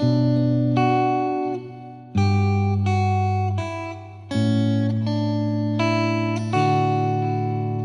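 Guitar music: a slow run of plucked chords, each struck sharply and left to ring out.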